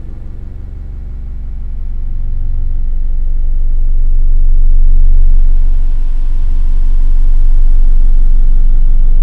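Synthesized binaural bass drone, a deep steady hum with faint higher tones over it. It swells from quiet to full level over the first few seconds and dips briefly about six seconds in.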